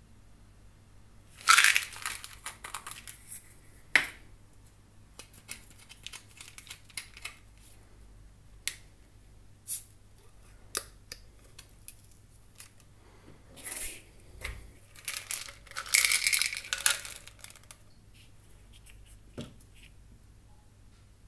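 Plastic packaging on a supplement tub crinkling and tearing as it is unsealed and opened, in two loud bursts, with scattered sharp clicks and taps of the hard plastic tub and lid in between.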